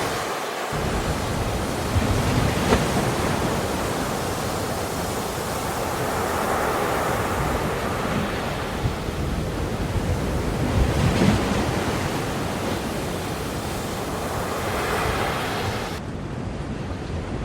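Ocean surf: waves breaking and washing in a steady rush of noise that swells every few seconds.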